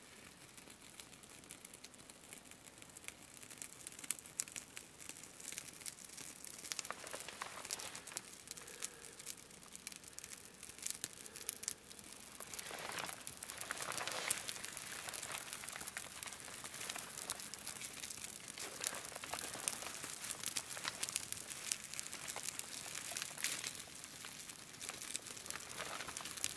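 A small fire of dry grass tinder and twigs catching and crackling, with the rustle and crunch of dry grass and sticks being handled. The crackling grows thicker and louder from a few seconds in.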